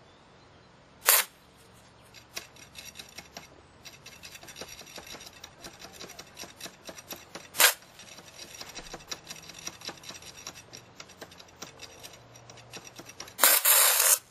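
Stick-welding arc from a homemade welder made of three 12-volt lead-acid batteries in series (36 V). The electrode strikes twice with short loud bursts and crackles and spits in between. Near the end the arc holds steady and loud for about a second.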